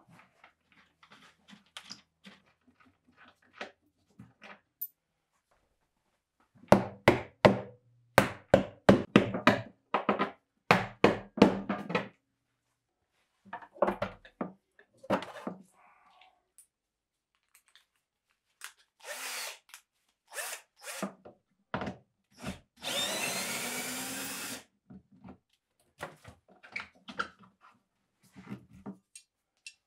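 Workshop tool sounds on a wooden pinball cabinet: a quick run of sharp knocks and thuds about a quarter of the way in, then a power drill running in short spurts and one longer run of about two seconds in the second half, with scattered small clicks between.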